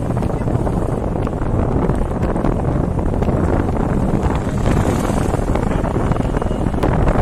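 Wind buffeting the phone's microphone from a moving van, over a steady rumble of road and engine noise.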